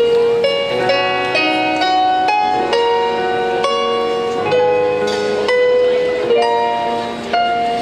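Piano-sounding keyboard playing a slow ballad melody without vocals, struck notes ringing out one after another over low sustained notes.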